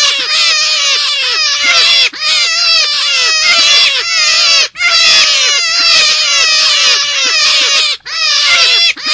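Forest rabbit calls from a lure recording: a rapid string of short, high, downward-sliding squeals, several a second, in runs of one to three seconds broken by brief gaps.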